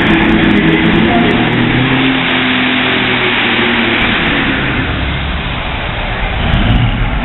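Loud pulling-vehicle engine running hard, its pitch falling over the first few seconds and climbing again near the end, under a thick wash of noise.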